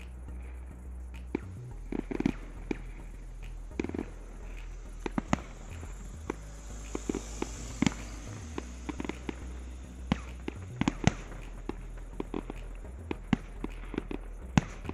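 Fireworks display: shells bursting in an irregular string of sharp bangs, sometimes several close together, over a steady low hum.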